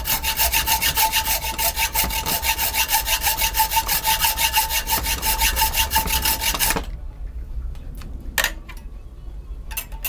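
Hacksaw cutting a slot into a cast-alloy VCR head drum clamped in a vise: fast, even back-and-forth strokes with a steady tone running under them. The sawing stops about seven seconds in, leaving a few light clicks.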